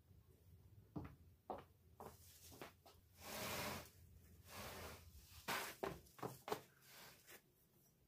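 Light knocks and clicks of household objects being handled, with a short hiss about three seconds in and a weaker one just before five seconds.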